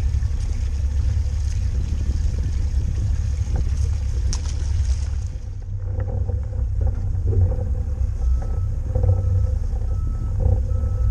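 Pontoon boat under way, a low steady rumble of its running motor, with four short, evenly spaced electronic beeps in the second half.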